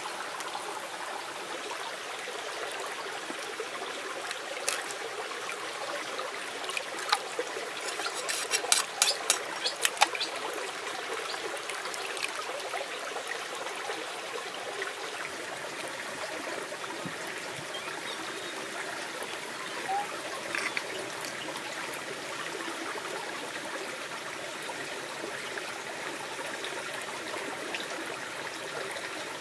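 Shallow stream trickling steadily over stones. A quick run of sharp clicks and knocks about a quarter of the way in comes from the oyster shell being handled in the water.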